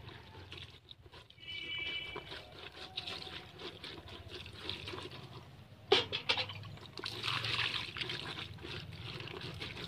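Water poured from a plastic mug over small fish in a woven bamboo tray, splashing and trickling in uneven surges. A sharp knock about six seconds in.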